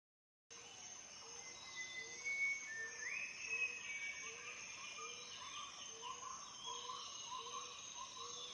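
Faint outdoor nature ambience: a steady high insect drone with birds chirping over it, and a low call repeating about twice a second.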